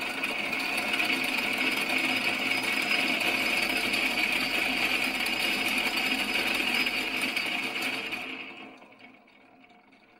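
Variable-speed mini metal lathe spinning a 4-jaw self-centering chuck at speed: a steady motor and gear whine. About eight seconds in it winds down and fades as the spindle stops.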